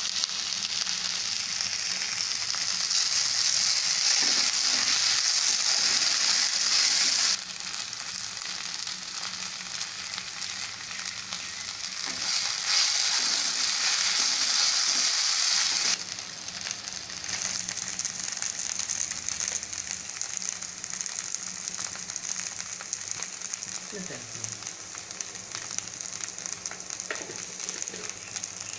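Brinjals, onion and green chillies sizzling as they fry in hot oil in a pan: a steady frying hiss that drops suddenly to a quieter level about seven seconds in, comes back loud for a few seconds, and drops again about halfway through.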